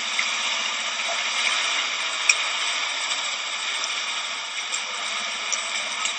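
Steady hiss of stormy wind and rain, with a few faint ticks.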